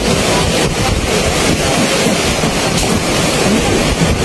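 Loud, steady rush of strong wind buffeting the microphone.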